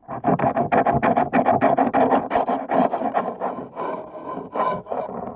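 Knife sawing and scraping through a fish being filleted: a rapid rhythmic rasp of about five strokes a second that slows and thins out near the end.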